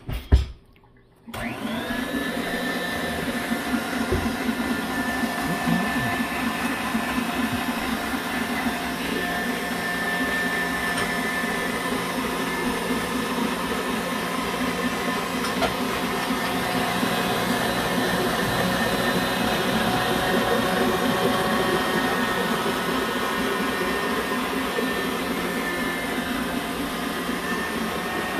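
Tilt-head stand mixer: a knock as the head is set down, then about a second in the motor starts and runs steadily with a held whine, its wire whisk beating Italian meringue in a stainless steel bowl.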